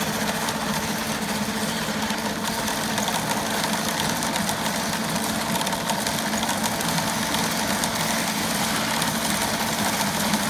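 Dazzini TCI260VH chain saw machine running steadily as its bar and chain cut a slot through sandy ground.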